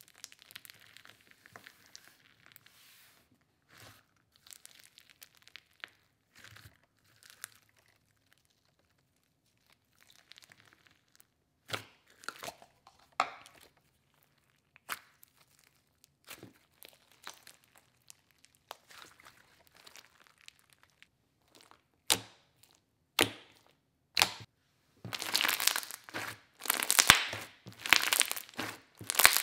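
Thick white slime topped with small candy-like pieces being poked, stretched and squeezed by hand: sticky crackling and popping. The sounds are sparse and quiet for most of the time, then come thick and much louder in the last few seconds as the slime is squeezed in a fist.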